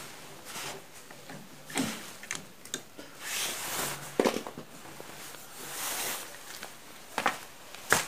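Small metal engine parts, a piston and its wrist pin, handled by hand while the piston is fitted onto the connecting rod: scattered light clicks and knocks, with a few longer rustles in between.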